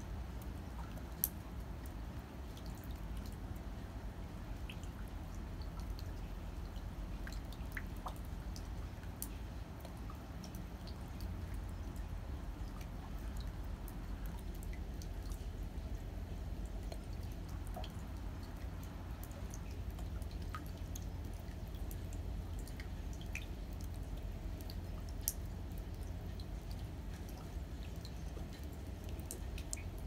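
Winter rain dripping: scattered single drops tick at irregular intervals over a steady low rumble.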